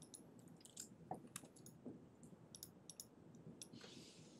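Faint computer-keyboard typing: scattered, irregular keystroke clicks over a low room hiss.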